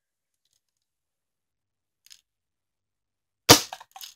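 Plastic BB-gun shotgun being racked: one sharp, loud clack about three and a half seconds in, followed by two lighter clicks, the loading stroke that readies the gun to fire.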